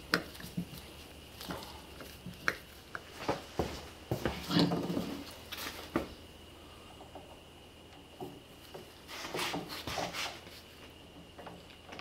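Scattered light clicks and knocks of hand tools and small metal carburetor parts being handled on a wooden workbench, with a short cluster of knocks about four seconds in and another about nine seconds in.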